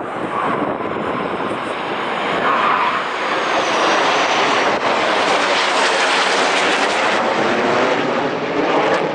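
Military aircraft passing over in the flypast: a loud rushing engine noise that builds over the first few seconds and stays loud through the rest.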